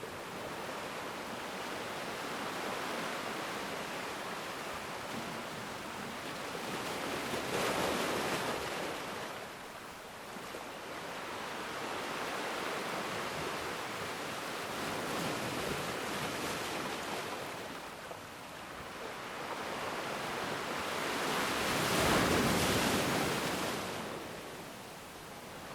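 Ocean waves breaking and washing up on a black sand beach. The surf swells and falls back, with two loudest breakers, one about 8 seconds in and one about 22 seconds in.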